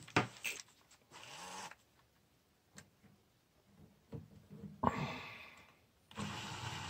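Faint clicks and rustles from handling, then near the end a cordless drill driver starts up, slowly turning the 3D-printed plastic gears of the wool winder with a low steady whir.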